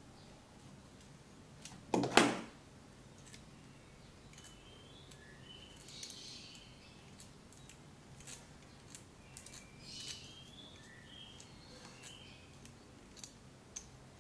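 Small metal lens parts being handled and worked by hand: scattered light clicks and short scraping squeaks of threads and pieces, with one louder bump about two seconds in.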